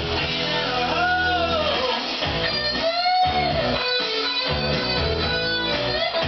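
Guitar music playing steadily, with some notes bending up and down in pitch.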